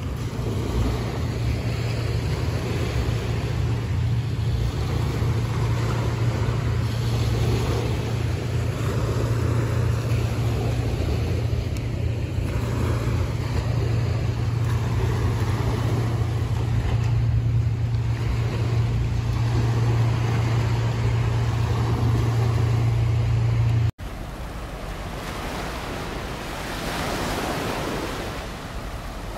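A loud, steady low rumble under an even hiss, which cuts off abruptly near the end; after that, small waves wash onto a sandy beach.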